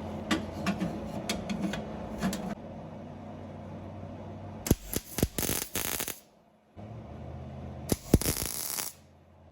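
Metal seat-frame parts clinking and clicking as they are handled, a run of sharp clicks over a low hum. Later come a few more clicks and two short bursts of noise, each about a second long.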